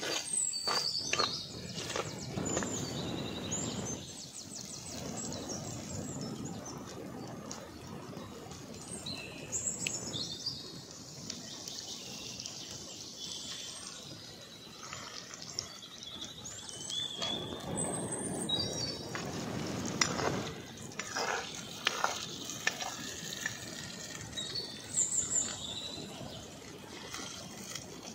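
Birds chirping repeatedly over a steady outdoor background, with bursts of scraping and knocking from a steel ladle in a clay cooking pot, busiest about two-thirds of the way through.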